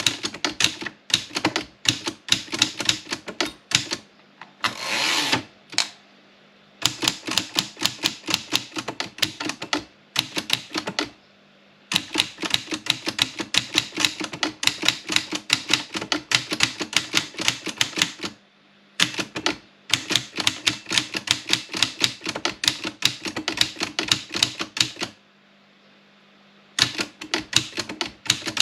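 Olympia Plana manual typewriter being typed on, fast runs of sharp key strikes with short pauses between them. About five seconds in there is a longer sliding rasp: the carriage being returned.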